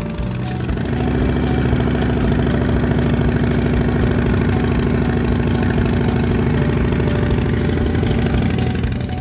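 Harley-Davidson Low Rider ST's Milwaukee-Eight V-twin engine starting up in the first second, then idling steadily.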